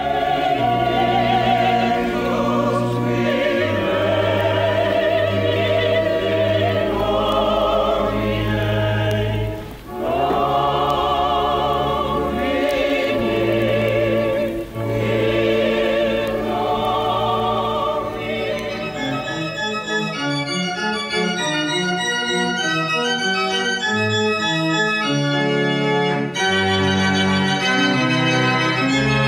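A singer with a wide vibrato sings over pipe organ accompaniment, with sustained low pedal notes beneath. About twenty seconds in the voice stops and the church pipe organ plays on alone in quick, busy passages, pedals included.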